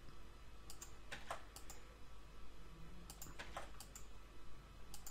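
Faint, scattered clicks of a computer keyboard and mouse: a handful of keystrokes and button clicks a second or so apart, as Ctrl+R loop cuts are entered and placed.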